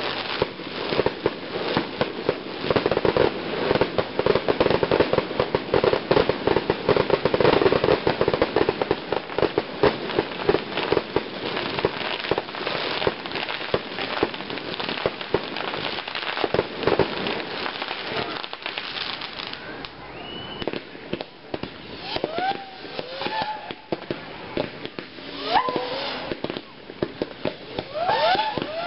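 Fireworks going off in rapid succession, a dense barrage of bangs and crackling that thins out in the second half.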